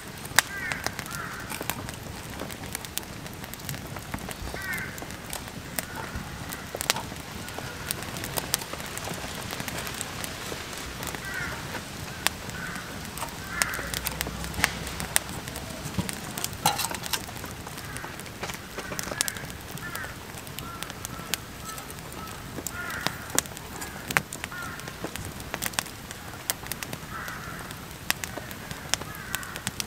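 Wood campfire crackling, with frequent sharp pops, while birds call now and then in the background.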